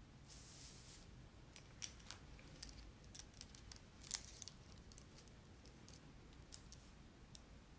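Near silence with faint, irregular small clicks and taps, about a dozen, the sharpest about halfway through, after a brief soft hiss near the start.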